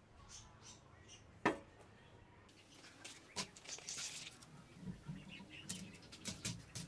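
Scattered light clicks, taps and rustling from parts of a jointer planer being handled, with one sharp knock about a second and a half in.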